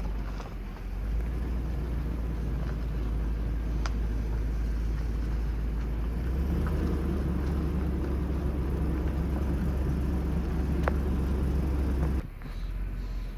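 Car driving: a steady low road-and-engine rumble with a few faint ticks. The rumble drops off abruptly near the end.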